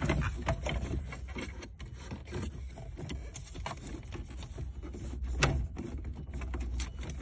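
Plastic clicks and knocks as an aftermarket head unit and its fascia are pressed into a car dashboard and clipped into place, over a steady low hum. There is one louder knock about five and a half seconds in.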